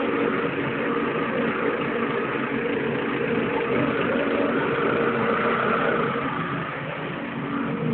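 A motorcycle engine idling steadily.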